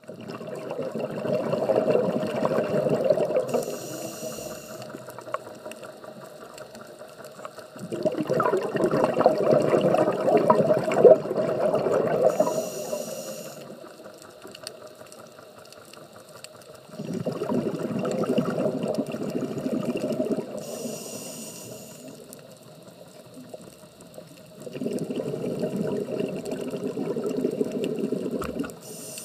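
Scuba diver breathing through a regulator: four long bursts of exhaled bubbles about every eight seconds, each followed by a short hiss as the regulator delivers the next breath.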